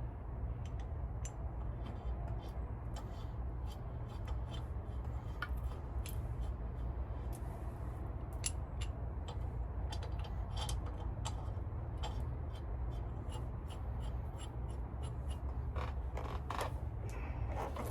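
Irregular light metallic clicks and taps of hand tools and driveline parts being handled, over a steady low hum.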